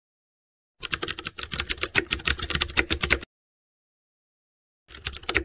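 Typing sound effect: a rapid run of keyboard-like clicks lasting about two and a half seconds, then silence, then a second shorter run near the end.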